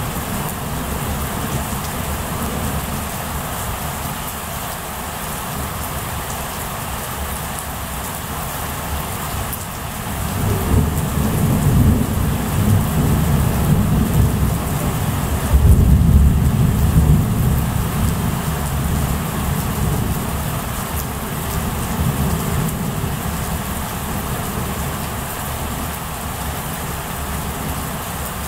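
Steady rain with a long roll of thunder: a deep rumble builds about ten seconds in, peaks with a heavier crack-and-rumble a little past halfway, then slowly dies away.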